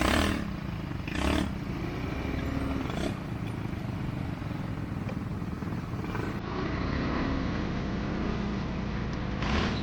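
ATV engine running steadily during a ride, with a few brief louder rushes of noise near the start and near the end.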